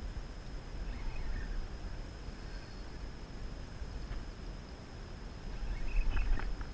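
Steady muffled low rumble of wind and water heard through a GoPro's waterproof housing, with a few light clicks or knocks near the end.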